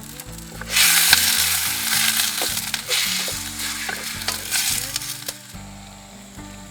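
Food sizzling in hot oil in a pan while being stirred, with scattered utensil clicks against the pan. The sizzle swells about a second in and gradually dies down toward the end.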